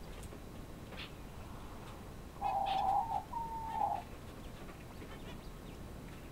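Male Chinese painted quail calling: two short whistled notes back to back about two and a half seconds in, the second starting higher and falling slightly.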